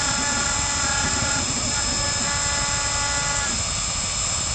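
CNC router engraving wood, its spindle running steadily with a high hiss. Two stretches of steady whining tones, each about a second and a half long, run over it as the machine moves.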